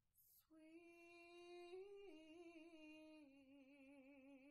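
A woman's voice singing unaccompanied and without words, holding long notes that step down in pitch twice, with a clear vibrato on the later, lower note.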